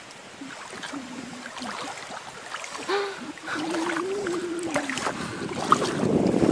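Shallow water sloshing and splashing, louder near the end, with a drawn-out, wavering vocal sound in the middle.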